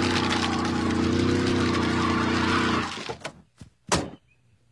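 Cartoon car engine running at high, steady revs with wheels spinning in mud, cutting off just before three seconds in. Then two sharp knocks, the second louder, a car door opening and slamming shut.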